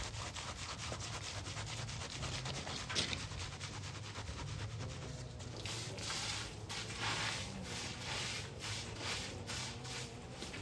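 Rapid rhythmic scraping strokes of a hand tool rubbing over a rough surface, about four a second, growing stronger about six seconds in, over a steady low hum.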